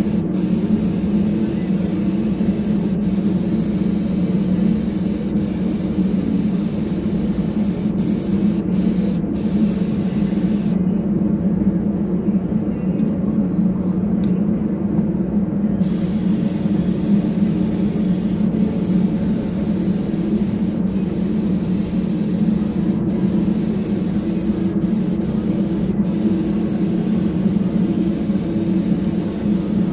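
Air-fed gravity-cup spray gun hissing as it sprays paint, the hiss stopping for about five seconds near the middle. A steady low hum runs underneath throughout.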